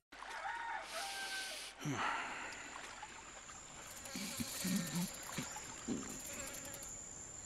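Outdoor lakeside ambience of insects buzzing, with a steady high drone that sets in about two seconds in. A few short low sounds come between about four and six seconds in.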